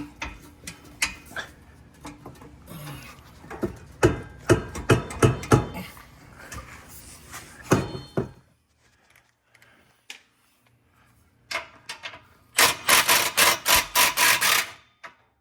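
Hands-on work fitting an exhaust: irregular knocks, clunks and scraping of metal parts for the first half, then a pause. Near the end comes a quick two-second run of rapid, sharp clicks.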